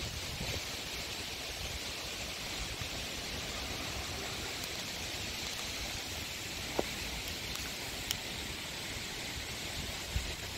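Steady outdoor background hiss with a light low rumble on the microphone, broken by two faint ticks about seven and eight seconds in.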